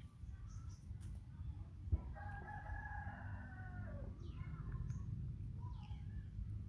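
A rooster crowing once, a drawn-out call of about two seconds that drops in pitch at its end, followed by a few short chirps, over a steady low rumble.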